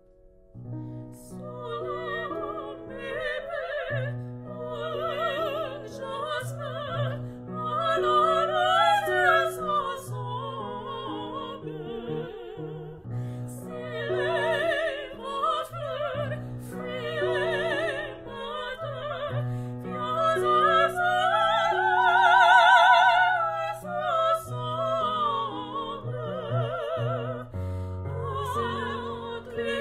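Operatic singing with a wide vibrato over a sustained low instrumental accompaniment, swelling to its loudest about three quarters of the way through.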